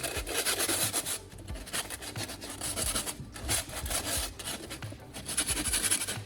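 Sandpaper scrubbing back and forth over the cut metal rim of an electric kettle's base, a scratchy rasp in repeated strokes as the edge is cleaned and smoothed after cutting.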